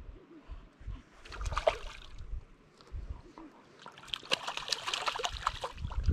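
Hooked wild brown trout splashing at the water's surface as it is played close to the bank: a brief flurry of splashes about a second in, then busier, continuous splashing from about four seconds on. Low thumps of wind on the microphone underneath.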